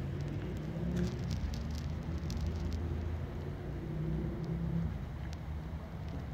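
A steady low rumble with a few faint ticks and rustles scattered through it.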